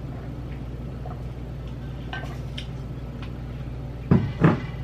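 Chewing dill pickle potato chips: a few faint crunches over a steady low hum, then two loud crunchy knocks close together near the end.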